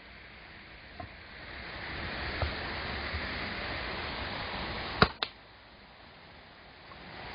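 A steady rushing hiss with a few sharp knocks, the loudest two close together about five seconds in; the hiss drops away after them.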